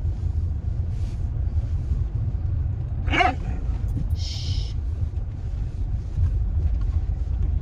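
Steady low rumble of a car on the move, heard from inside the cabin. About three seconds in comes a brief high-pitched whine, and a second later a short hiss.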